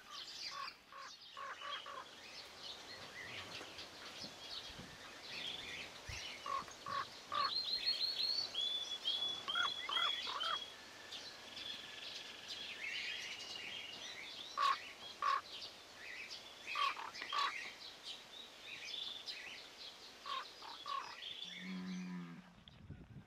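Mixed wild birdsong and calls: chirps, a run of quick repeated whistled notes, and harsh calls coming in pairs every second or two. A cow begins to moo near the end.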